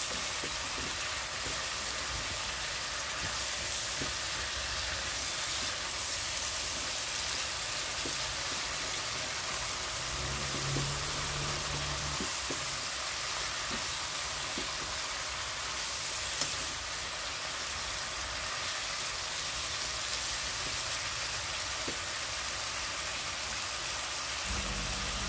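Mackerel in green chilli sauce sizzling steadily in a frying pan as the cooking liquid reduces.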